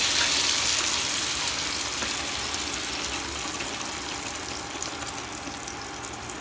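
Wet ground ridge-gourd-peel paste sizzling as it goes into hot mustard oil in a kadai, a steady frying hiss that gradually dies down as the paste covers the oil.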